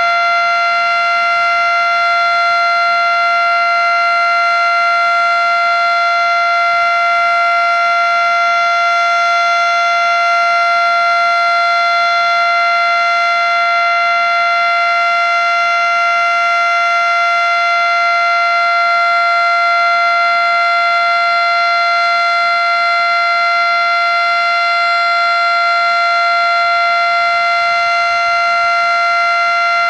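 Federal Signal Model 5 outdoor warning siren sounding the Alert signal: one steady, unwavering tone with many overtones, held at full volume. It is very loud.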